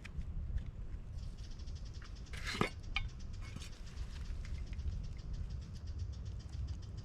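Close handling noise of lure bottles at a trap set: a rapid run of faint clicks, one louder scrape about halfway through, over a low wind rumble.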